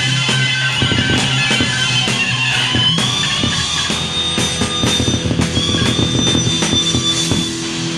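Grunge rock band playing an instrumental break: electric guitar holding long high notes that bend upward about three seconds in, over bass and a drum kit, with no vocals. The band eases off slightly near the end.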